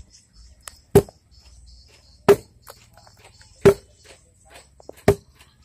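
Four heavy blows of a hand tool at an even pace, about one every second and a half, each a sharp strike with a short ring. Insects chir steadily in the background.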